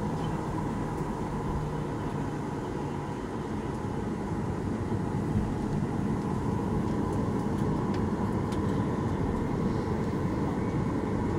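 Cabin noise of a Boeing 737-800 taxiing: the steady rumble and hum of its CFM56 engines at idle, with the hiss of the cabin air and the rumble of the wheels on the taxiway.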